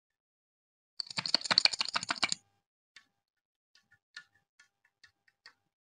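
Clear slime being squished and pressed, giving a quick run of crackling clicks for about a second and a half, then scattered small pops as air bubbles in the slime burst.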